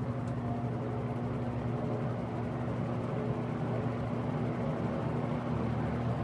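Eskimo model 2016 16-inch box fan running on medium speed, heard from the back: a steady low motor hum under the even rush of air from the blades.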